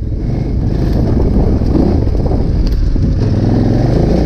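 KTM 990 Adventure's V-twin engine running as the motorcycle is ridden.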